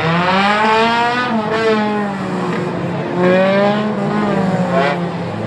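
Several four-cylinder short-track race cars running, their engines revving up and down with the pitch rising and falling as the cars go by.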